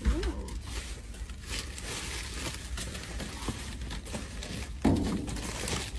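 Clear plastic bags and packaging crinkling and rustling as a hand rummages through a dumpster's contents, with one louder short burst about five seconds in.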